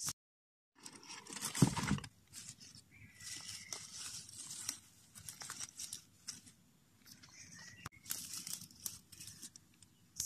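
Rustling and handling noise as hands push in among plant leaves and move things about, uneven with scattered clicks and a louder bump about one and a half seconds in.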